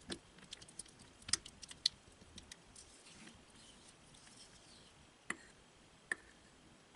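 Faint clicks and light taps of a clear spatula against a small glass bowl as a thick, wet cocoa paste is stirred. The clicks come in a quick irregular cluster over the first two seconds, then two single ones later on.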